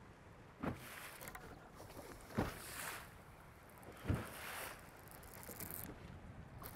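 Small waves slapping against a bass boat's hull, three slaps about a second and a half apart, each followed by a short wash of splashing water.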